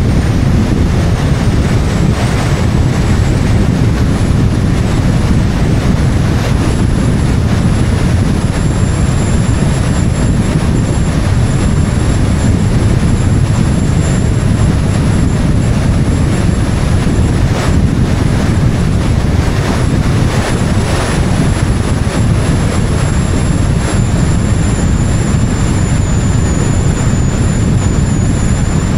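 Steady wind buffeting and road rumble from a moving car, picked up by an action camera mounted on its outside, loudest in the low rumble. A few short louder moments occur partway through.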